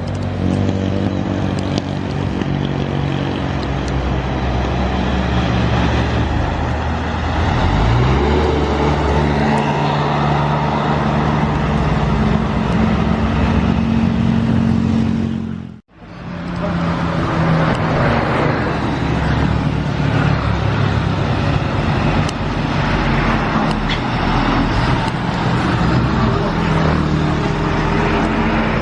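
Large buses' engines running under load as they climb an uphill road, with a rising engine note about eight seconds in. The sound breaks off for a moment about halfway through, then heavy engine and road noise carries on.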